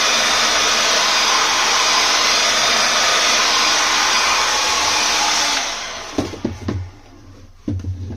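Heat gun blowing hot air steadily to soften the glue holding a laptop LCD panel, switched off about five and a half seconds in and winding down. A few short knocks follow near the end.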